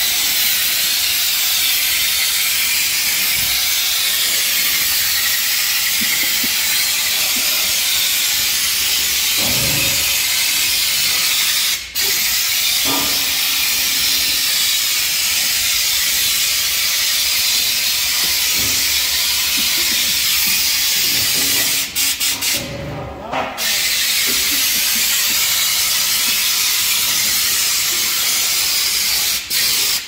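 Steady hiss of a hand-held pressure sprayer misting engine-cleaning chemical. It cuts out briefly about twelve seconds in and again around twenty-two seconds, then sputters in quick short spurts near the end.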